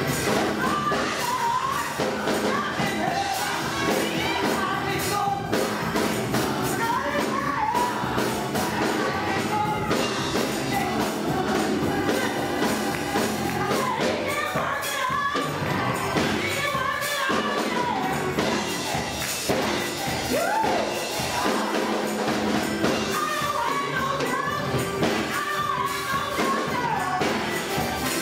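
Gospel choir with a lead singer performing, backed by a live band with percussion.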